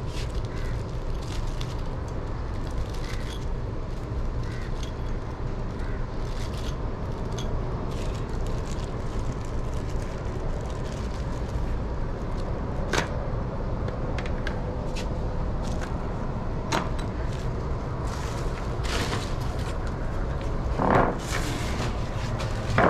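Small plastic GoPro Hero 9 base mounts and their packaging being handled and set down on a plastic table: scattered light clicks and taps, a sharper click about halfway, and a louder rustle near the end, over a steady low rumble.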